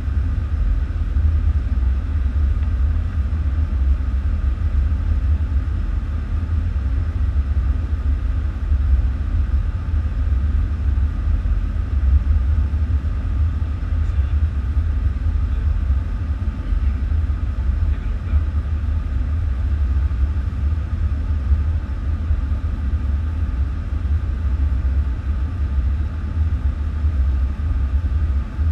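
Steady low rumble inside a Boeing 747 cockpit descending on approach: airflow and engine noise heard through the flight deck.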